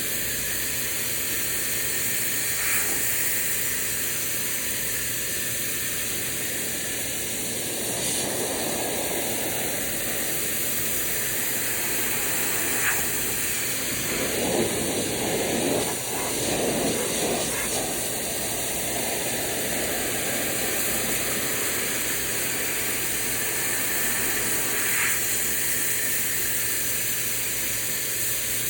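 Kranzle 1122TST electric pressure washer running, its high-pressure spray hissing steadily against a fence, with a steady low hum underneath. The spray grows fuller and louder in the middle stretch before settling back to the steady hiss.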